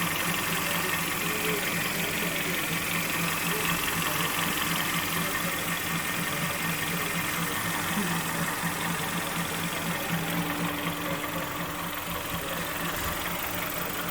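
Rebuilt Kia G4KD 2.0-litre four-cylinder petrol engine idling steadily as it warms up after its first start following an overhaul. It is running quiet, with no knock.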